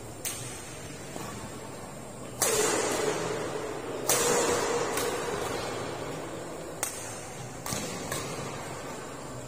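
Badminton rackets striking a shuttlecock during a doubles rally: sharp, irregular cracks that echo in the hall. Two of the strikes, about two and a half and four seconds in, are much louder and ring on longer.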